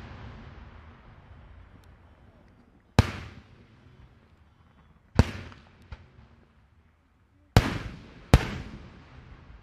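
Daytime fireworks shells bursting in the air: four sharp bangs, about three seconds in, about five seconds in, and two close together near the end, each trailing off in a rolling echo, with a small extra pop after the second.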